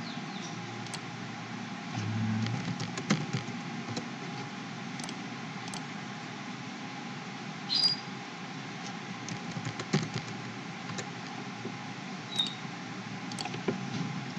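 Scattered computer mouse clicks and keyboard key presses over a steady background hiss and hum, with a short low hum about two seconds in.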